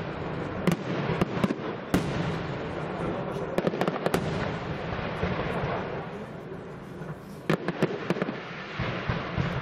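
Aerial fireworks display: shells bursting with sharp bangs at uneven intervals, a cluster of them about four seconds in and two loud ones near the end, over a steady rushing noise.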